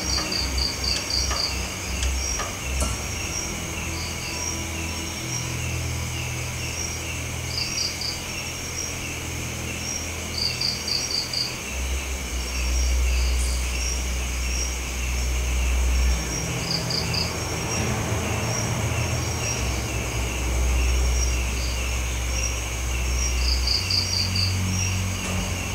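Night insects, crickets among them, calling: a continuous high trill with short bursts of three to five chirps every couple of seconds. Underneath is a low, steady hum that shifts in pitch a few times.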